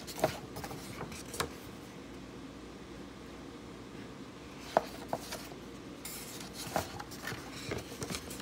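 A picture book being handled and its page turned: a handful of sharp clicks and short paper rustles, scattered through the pause and bunched together near the end, over a steady low hum.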